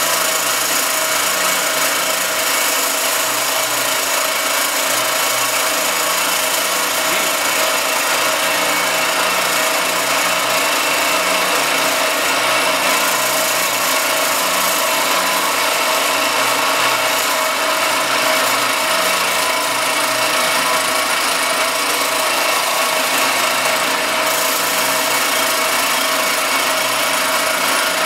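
Circa-1948 Gorton 8-1/2D vertical milling machine running, its end mill face-milling an aluminum casting as the table feeds it under the cutter. It makes a steady hissing cutting noise with a steady tone in it, unchanging throughout.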